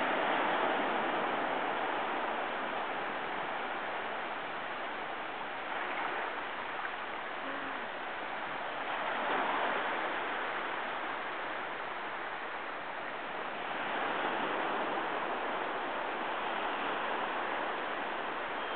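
Small shore-break waves breaking and washing up the beach: a steady rush of surf that swells louder a few times as waves come in.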